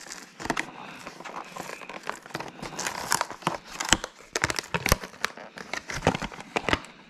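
Stiff clear plastic blister pack and its cardboard backing card being pried and pulled apart by hand: a run of irregular crinkling, crackling and sharp plastic clicks.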